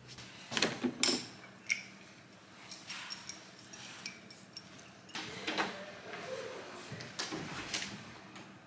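Scattered sharp clicks and knocks: several about a second in, and more in the second half.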